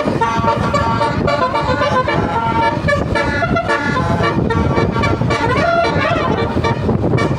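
Bus basuri musical horn playing a tune: a run of stepped notes, with a few sliding notes about six seconds in, over a steady low vehicle rumble.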